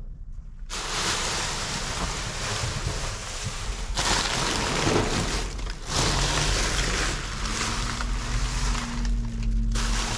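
Wind rushing and rumbling over the microphone, changing in strength a few times; a faint steady hum comes in about three-quarters of the way through.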